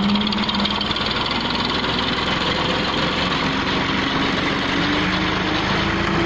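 Massey Ferguson 240 tractor's diesel engine working under load, its pitch slowly rising, as it tows a Massey Ferguson 260 that would not start on a chain to tow-start it; the towed 260's engine is being turned over and begins to fire near the end.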